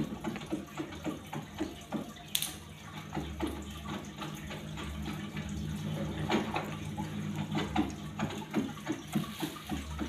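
Water bubbling and trickling, many small gurgles a second, over a steady low hum.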